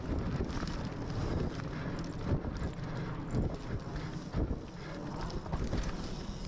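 Mountain bike riding down a dirt forest trail, heard from a camera on the bike: wind buffeting the microphone over the rumble of tyres on dirt and roots, with a few sharp knocks and rattles from the bike.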